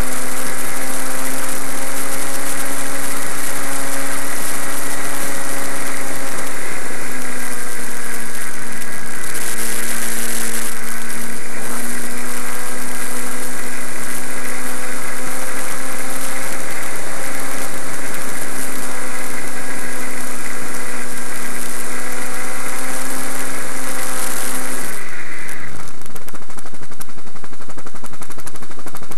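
Model flying wing's motor and propeller running steadily on its onboard camera microphone, with wind rush over it. About 25 seconds in, the motor note drops sharply and dies away as the throttle is cut, leaving only the wind noise.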